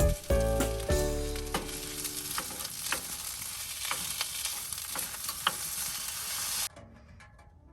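Steady sizzling with scattered sharp pops, under soft background music that fades out over the first couple of seconds. The sizzling cuts off abruptly near the end, leaving faint music.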